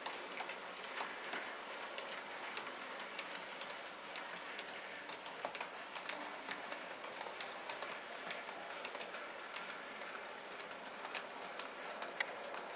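Bachmann Class 20 OO gauge model diesel locomotive and its goods vans running along the track: a steady running noise with frequent light, irregular clicks from the wheels on the rails.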